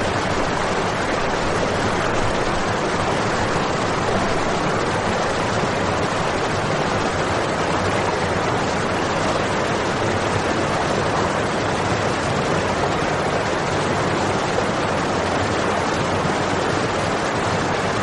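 Water from a floating-teapot fountain's spout pouring onto a stone and splashing into the pool below: a steady, even rushing splash.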